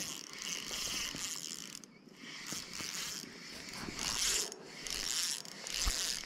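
Fishing reel being cranked to bring in a small fish, a whirring, clicking ratchet sound in several uneven bursts.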